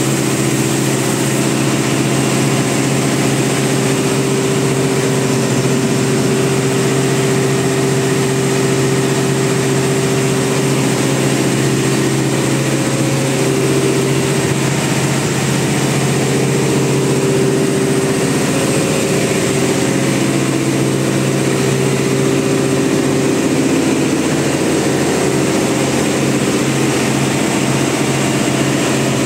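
Ship's main diesel engine running at a steady speed in the engine room: a loud, even drone with a steady low hum and no change in pitch.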